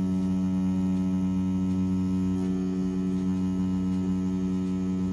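Bronc V10 Hummingbird rotary tattoo machine running with a steady, even hum, set at 7.5 volts on its soft-hit setting while a 14 round shader needle cartridge works black ink into practice skin.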